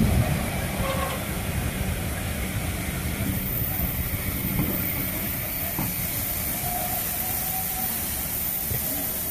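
Heritage railway passenger coaches rolling slowly past, a steady low rumble from the wheels with a hiss over it; a higher hiss joins about three seconds in.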